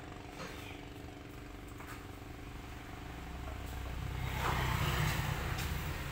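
An engine running steadily, getting louder about four seconds in.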